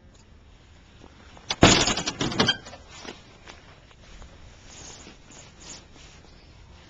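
A brief loud clattering rattle about a second and a half in, lasting about a second, followed by faint scattered clicks and handling noises.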